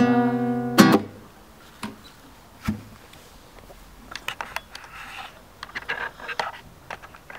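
Closing strummed chord on a nylon-string classical guitar, ringing for about a second and cut off with a last sharp strum. Then scattered clicks, a knock and soft rustling as the player moves about and handles things close by.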